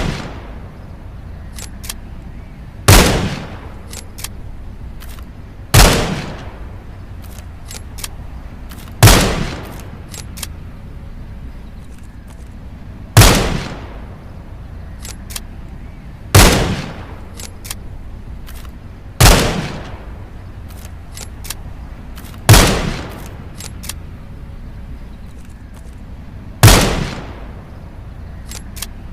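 .22 rifle firing single shots, eight in all, one every three to four seconds, each a sharp crack with a short decaying tail.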